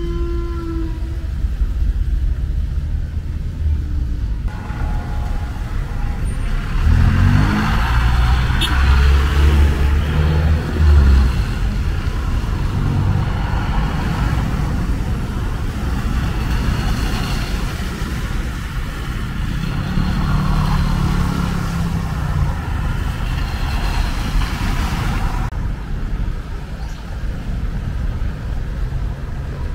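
Road traffic: vehicle engines running and passing, with a heavier engine loudest from about seven to eleven seconds in and another passing around twenty seconds in.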